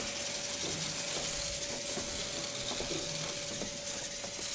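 Robodyssey Mouse robot's small drive motors and gears whirring as it drives itself through the maze, a steady thin whine with a few light clicks.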